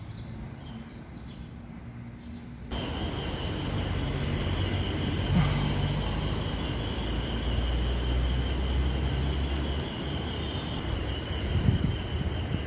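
City street ambience: quiet with a few bird chirps at first, then an abrupt cut about three seconds in to louder, steady vehicle noise with a low engine hum and a steady high-pitched whine.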